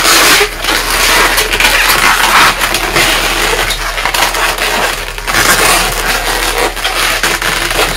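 Latex twisting balloons rubbing against each other and against the hands as they are twisted and locked together, a loud continuous crinkling with many small crackles.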